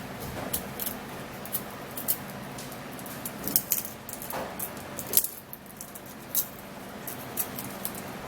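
Scattered small clicks and crackles of hands peeling and handling garlic cloves, irregular and without rhythm.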